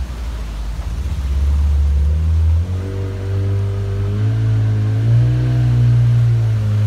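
Small motorboat's engine running under way. It holds at low revs for the first couple of seconds, picks up sharply about three seconds in, climbs higher past the middle, then eases back a little near the end.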